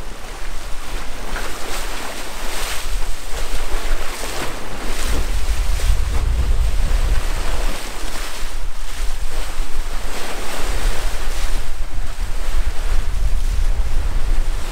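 Rushing, splashing water of a sailing catamaran's bow wave as the hull cuts through the sea at about 7.5 knots, swelling and easing every second or two, with wind buffeting the microphone as a heavy low rumble.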